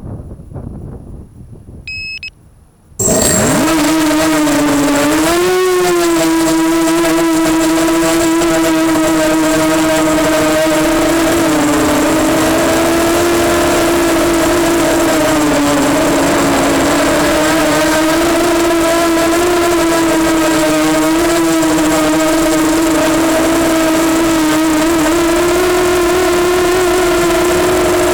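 EMax Nighthawk 250 quadcopter's brushless motors and propellers whining, starting suddenly about three seconds in after a short beep. The loud whine holds steady, its pitch wavering up and down as the throttle changes in flight.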